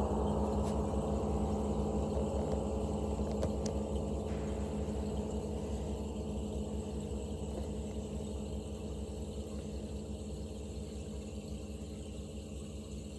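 Large Broder Oetken Triangel gongs ringing out after being played: a dense hum of many low overtones fading slowly, with no new strike. A few faint ticks about three to four seconds in.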